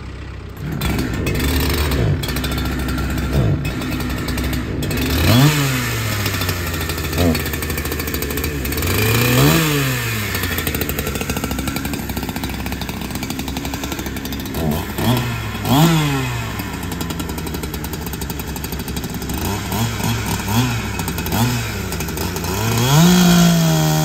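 Two-stroke chainsaw running, idling with repeated short revs that rise and fall back. Near the end it goes to full throttle and holds high as the bar goes into a pine log to cut it to length.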